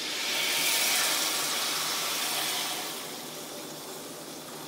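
Water poured from a jug into the bottom of a roasting pan, splashing around the vegetables. The pour is strongest for the first three seconds or so, then eases to a lighter, steady flow.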